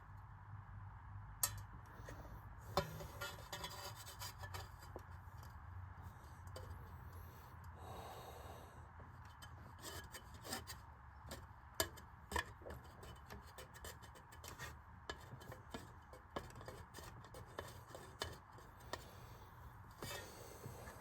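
Faint hand-handling sounds of someone working at the fan blade on the motor shaft of a Marvin 1015 window fan, trying to free the blade: rubbing and scraping with scattered sharp clicks and knocks, the loudest about a second and a half in, three seconds in and twelve seconds in.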